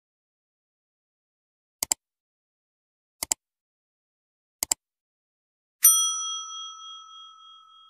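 Subscribe-animation sound effects: three quick double clicks about a second and a half apart, then a bright bell ding that rings on and fades away.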